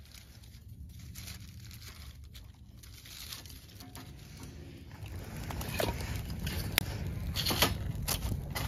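Split kindling being laid into a stainless steel fire pit over a burning fire lighter, with light wooden knocks and scrapes. The fire catches and crackles, with sharp pops, louder from about five seconds in, over a low rumble.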